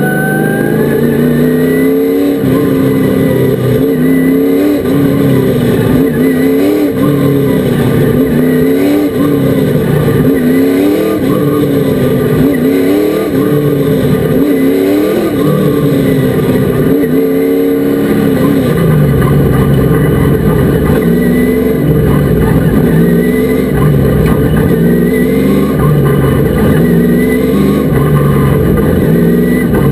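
Super truck racing engine running hard, its pitch rising and falling every second or two.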